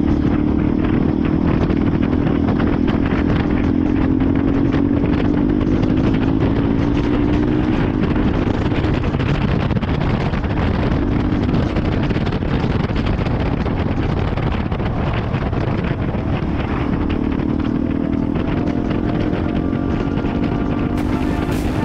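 KTM 390 Adventure's single-cylinder engine running at a steady cruise, its note rising and falling a little, with wind and road noise over the microphone.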